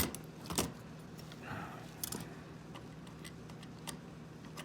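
Scattered small metallic clicks and clinks from tinplate toy train parts being handled while a coupler is bent by hand, with a sharper click right at the start and a faint steady hum underneath.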